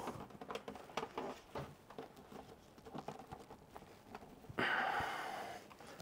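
Light plastic clicks and ticks as a plastic pry tool works the clips along the edge of an all-in-one PC's back cover, followed near the end by a hiss about a second long.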